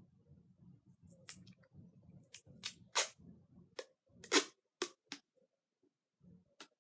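Short, sharp snipping and rustling from handling squishy-making craft materials, about ten irregularly spaced strokes, the loudest about four seconds in.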